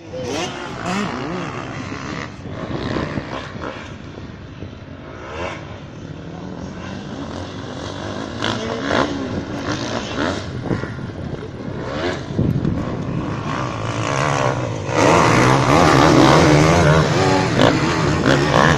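Several motocross bikes racing on a dirt track, their engines revving up and down as they accelerate and pass. The sound grows loudest from about fifteen seconds in, as bikes pass close by.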